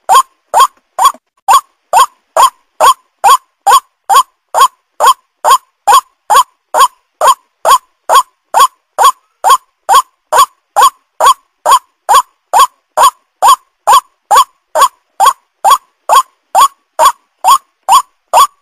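White-breasted waterhen calling: a steady, loud series of short clipped notes, each sliding down in pitch, repeated about twice a second without a break, as a bird-luring call.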